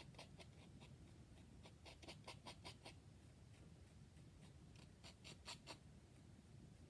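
Faint scraping strokes of a metal palette knife mixing oil paint on a paper palette pad, about four quick strokes a second, pausing around the middle and resuming briefly near the end.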